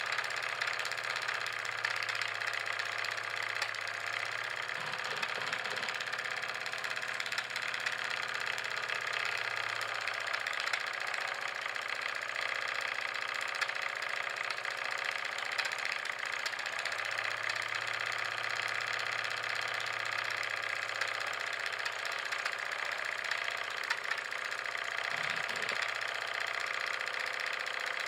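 Scratch-built model vertical steam engine running steadily: a fast, even chuff and hiss of steam from its small cylinder.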